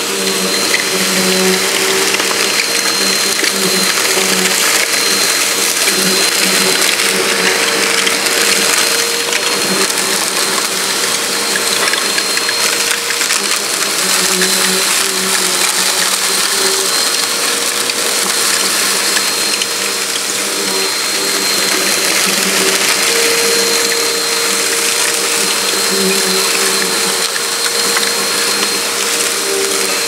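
Insignia bagless upright vacuum cleaner running steadily while sucking sand up from a rug, its motor noise carrying a steady high whine.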